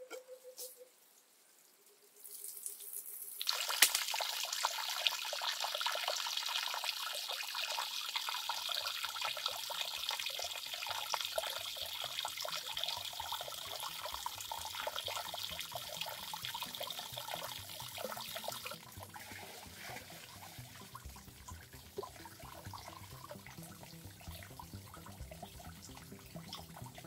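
Water running from a basket's spout down a clay-plastered water slide and splashing and trickling into a small pond below. It starts a few seconds in, runs steadily, and turns softer about two-thirds of the way through.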